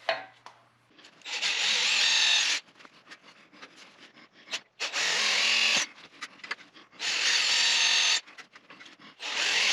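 Power drill boring holes through a turned wooden piece, in four short runs of about a second each with pauses between them.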